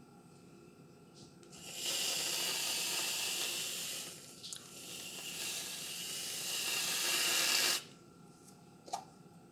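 Aerosol can of whipped cream spraying, a long hiss that dips briefly about midway and stops sharply near the end.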